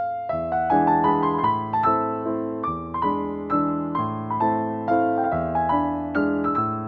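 Background piano music: a soft melody of struck notes and chords, each note fading after it is played.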